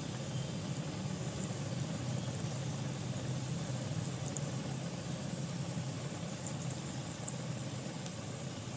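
Tempering of mustard seeds, green chillies and curry leaves sizzling in hot oil in a small pan, with a few faint crackles, over a steady low hum.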